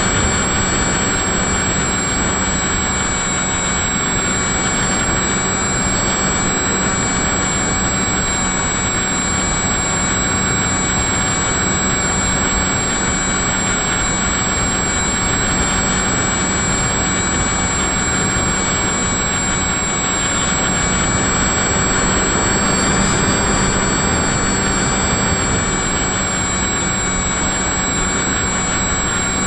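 Electric motor and propeller of an FPV model aircraft, heard through the onboard camera's microphone: a steady whine over loud rushing air noise that holds level throughout.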